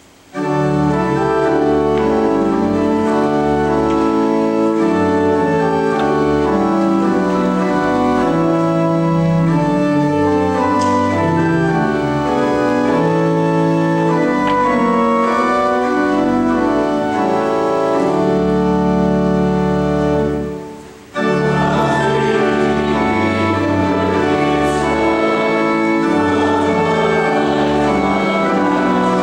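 Pipe organ playing slow, sustained chords. It breaks off briefly about two-thirds of the way through, then starts again.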